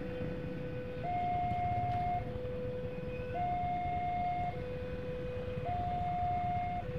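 Railway level-crossing warning alarm sounding while the barrier is down: an electronic two-tone signal that alternates a low and a higher note, each held about a second. A low hum of idling traffic runs underneath.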